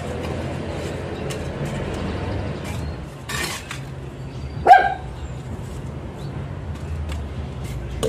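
Faint scraping and tapping of wet cement mortar being worked into concrete hollow blocks with a stick and trowel. A dog barks once about halfway through, the loudest sound.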